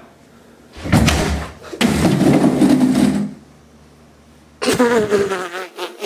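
A door being kicked in: a loud crash about a second in, then a second, longer crashing and rattling of the door as it bursts open. Near the end a voice cries out.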